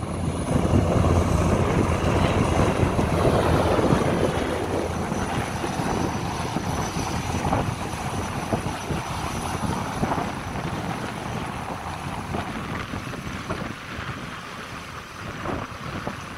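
Helicopter's turbine engines and rotor running, a steady rumbling noise with a high turbine whine on top. It is loudest over the first few seconds, then slowly fades.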